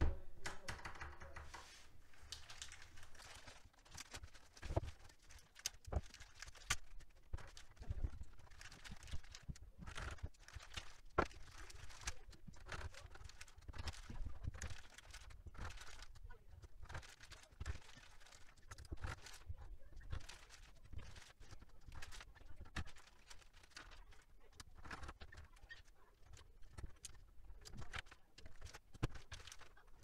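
Plastic keycaps being pressed onto the stems of Gateron Yellow switches on a mechanical keyboard: a run of irregular clicks and knocks, with the rustle of the plastic keycap bags.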